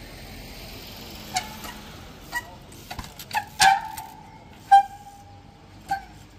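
Trials bike hopping up a rock: a series of sharp knocks as the wheels land and hit stone, several followed by a short high-pitched squeal from the bike, the loudest about three-quarters of the way through.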